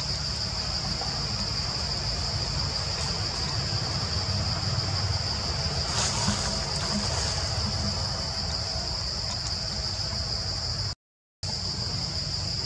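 Insects droning with a steady, high-pitched buzz over a low rumbling background. The sound drops out completely for about half a second near the end.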